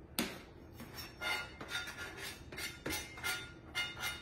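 Knife blade tapping and scraping against a flexible plastic cutting board, knocking chopped mint off it, with a few light clinks of metal on the platter. It comes as a string of short strokes, about two or three a second.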